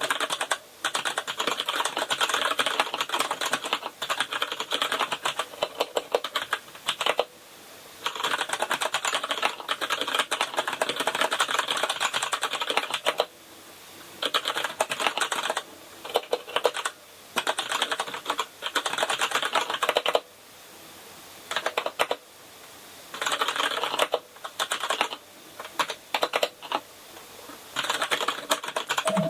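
Fast typing on a KINESIS Advantage contoured ergonomic keyboard with brown (tactile) key switches: a rapid patter of keystrokes in bursts, broken every few seconds by short pauses.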